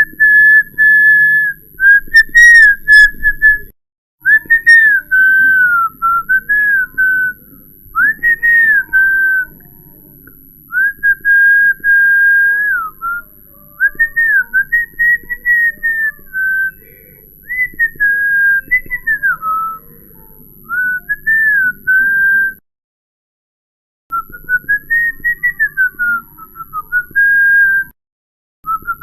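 A person whistling a wandering tune in short, sliding phrases, one note at a time, with brief pauses between phrases. The track drops to dead silence twice, for about a second and a half two-thirds of the way through and briefly near the end.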